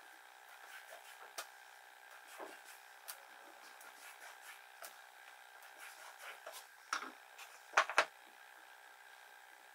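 Quiet handling of wood pieces on a workbench: faint scattered ticks and taps, then two sharp knocks close together about eight seconds in, over a steady background hum.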